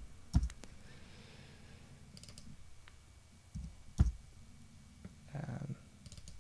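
Computer mouse clicking: a sharp click just after the start and a louder one about four seconds in, with a few faint quick ticks between.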